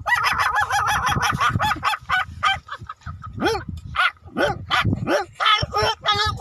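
A man's voice imitating a small puppy: a quick run of high yips, then separate yelping whimpers that rise and fall in pitch.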